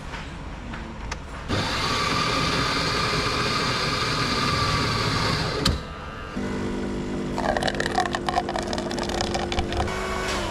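Motor vehicle engines running. The sound changes abruptly twice: first a steady whine, then a steady low engine note with rapid clatter that falls in pitch near the end.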